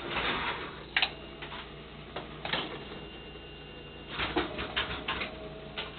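Brunswick GS-X pinsetter cycling in diagnostic mode: scattered mechanical clicks and knocks over a steady hum, with a cluster of knocks about four seconds in. The machine is on its way to jamming and shutting down on error code 76, which the mechanic traces to a slip clutch gear wheel whose set screws came loose.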